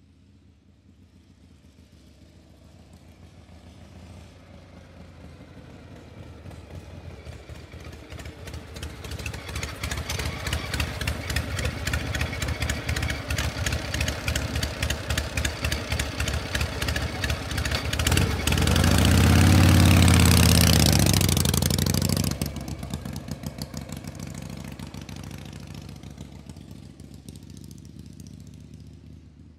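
A motor vehicle engine approaching, passing close and fading away. It grows steadily louder, peaks about two thirds of the way in with its pitch bending, then dies down.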